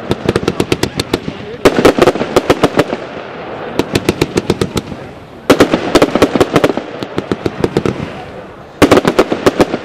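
Royal Fireworks 'Big Box' fireworks cake firing in volleys. Each volley is a rapid run of sharp bangs, about seven a second, loudest at its start and tapering off. Fresh volleys start near the beginning, about a second and a half in, about five and a half seconds in, and near the end.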